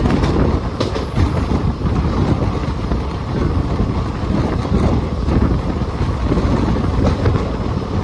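A passenger train running along the track, heard from the side of a coach: a steady, loud rumble of wheels on rails with a few faint clacks.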